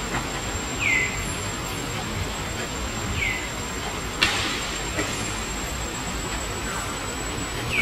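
Baby macaque calling for its mother: three short high calls, each falling in pitch, a couple of seconds apart. A sharp click comes about four seconds in.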